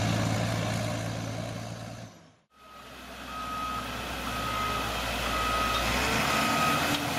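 Heavy crawler dozer's diesel engine running steadily, fading out about two seconds in. After a short silent gap, another machine's engine comes in with a reversing alarm beeping about once a second as it backs up.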